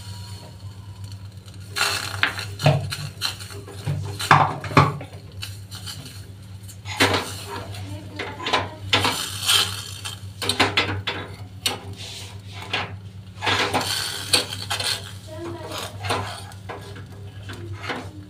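A metal spoon clinking and scraping against a small steel pot in irregular clusters while a thick flour paste is stirred as it heats on a gas burner, over a steady low hum.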